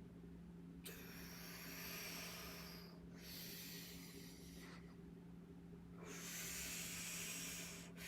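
A person breathing hard during deadlift reps: three long, forceful breaths of about two seconds each with short pauses between them. A steady low hum runs underneath.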